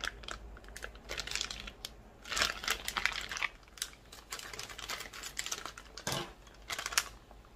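Packaging crinkling and rustling in the hands, first the plastic bag of vacuum-packed rice cakes and then a paper sauce-powder sachet, with kitchen scissors snipping the sachet open. The crackles come in irregular clusters, densest a little past two seconds in, with a couple of sharper clicks near the end.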